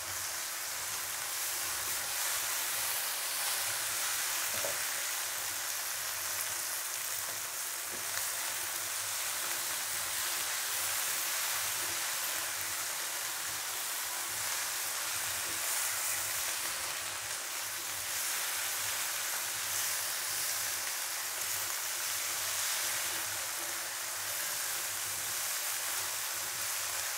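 Chopped green chilies and shallots frying in oil in a wok, a steady sizzle, with a silicone spatula stirring and scraping through them.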